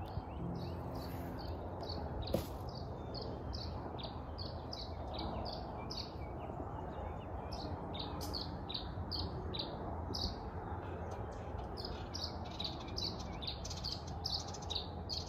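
Birds chirping over and over, short falling high notes several times a second, over the low steady hum of an electric fillet knife cutting through walleye.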